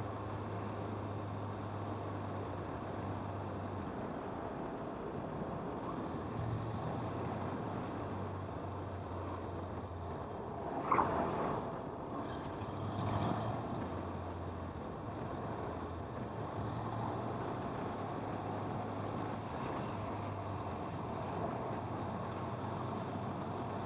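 Kawasaki motorcycle riding through town, its engine hum shifting up and down with throttle and gear changes under a steady wash of wind and road noise. There is a brief louder swell about eleven seconds in and a smaller one a couple of seconds later.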